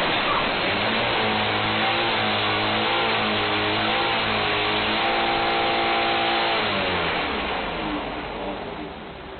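A car engine held at high revs, its pitch wavering, then dropping away about seven seconds in and fading out.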